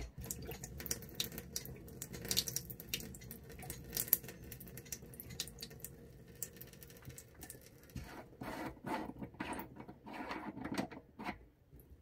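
Caravan kitchen tap running a thin, weak stream that patters and splashes into a stainless steel sink. The poor flow comes from a clogged tap aerator filter.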